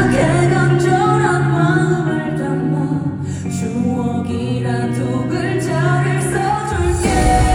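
Live song intro amplified through a concert PA: a female voice sings a wordless melody over held chords, and a fuller backing comes in about seven seconds in.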